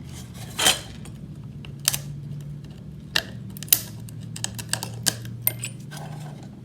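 Irregular sharp metallic clicks, ticks and scrapes of a tool working a soldered-down metal EMI shield can off a circuit board, with one louder click under a second in and a quicker run of small ticks in the middle.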